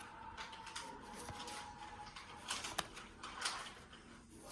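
Pokémon trading cards being handled: soft rustling and light sharp clicks as cards are slid and flipped through a freshly opened pack, busiest in the second half.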